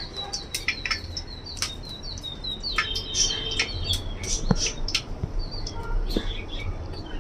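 Whole spices and green chillies crackling and spitting in hot oil and ghee, in irregular sharp pops. A bird chirps a quick repeated call over it during the first few seconds.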